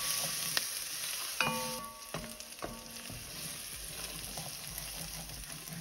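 Onions and garlic sizzling in olive oil in an enamelled Dutch oven as a wooden spoon stirs them. A few knocks of the spoon against the pot ring briefly, the clearest about one and a half seconds in, and the sizzle thins out after about two seconds.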